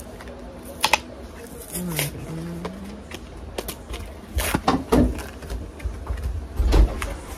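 Small plastic lip balm containers and packaging being handled and opened: several sharp clicks and knocks, the loudest with a dull thump near the end. About two seconds in there is a short hummed murmur of a voice.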